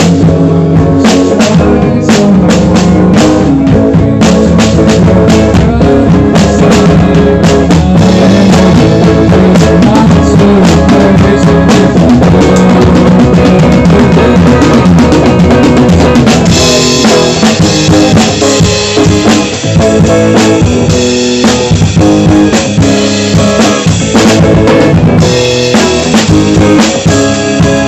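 Acoustic drum kit played live with a band, bass drum, snare and cymbals loudest over sustained pitched instruments. The cymbals wash louder from a little past halfway until near the end.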